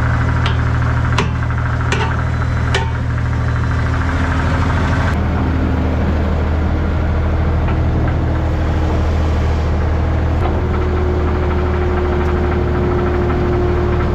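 Diesel engine of a 2007 New Holland skid steer running steadily, with a few sharp clicks in the first three seconds. A faint steady whine joins about ten seconds in.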